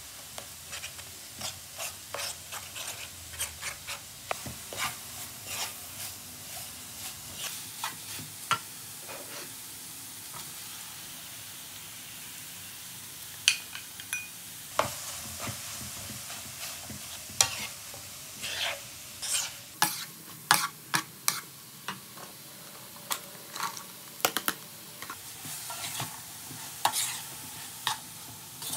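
Crumbled tofu and egg sizzling faintly in a nonstick frying pan while a wooden spoon stirs, scrapes and taps against the pan. About halfway through, diced carrots, peas and corn are tipped in from a bowl, and the stirring taps grow louder and more frequent after that.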